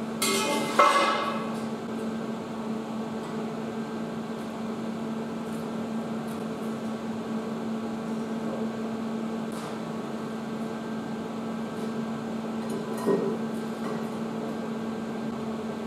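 Steel pipe clanging once and ringing briefly about a second in, with a lighter knock near the end, over a steady machine hum.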